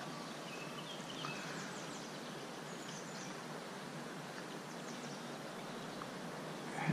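Quiet outdoor ambience: a steady background hiss with a few faint bird chirps, about one and three seconds in.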